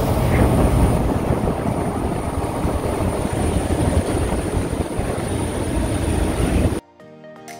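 Loud engine and wind noise from a moving vehicle or aircraft, steady throughout and heaviest in the low range, starting and stopping abruptly at clip cuts.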